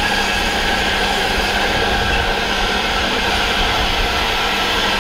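Rhaetian Railway G 4/5 steam locomotive no. 107 rolling slowly tender-first, with a steady hiss of escaping steam.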